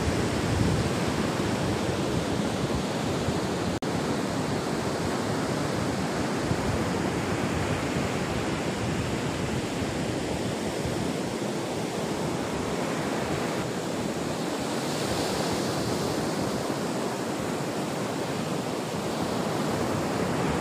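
Surf breaking on a sandy beach: a steady rush of waves, with a momentary break about four seconds in.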